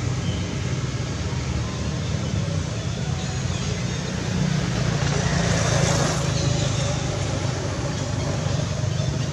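Steady low rumble of a vehicle engine, swelling louder about five seconds in and easing off a second or so later.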